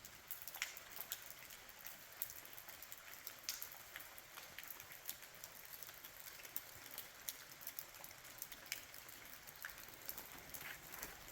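Light rain falling: a faint steady hiss with many irregular, sharp drops striking nearby surfaces.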